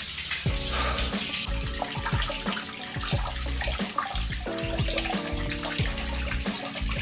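Tap water running steadily into a bathtub, filling it for a cold bath, with background music over it.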